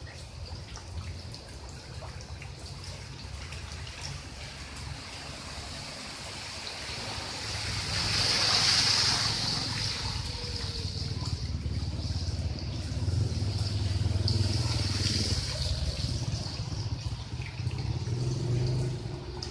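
Rain falling on shallow floodwater, with dripping and trickling: a steady watery hiss over a low rumble. It swells louder about eight seconds in and again through the second half.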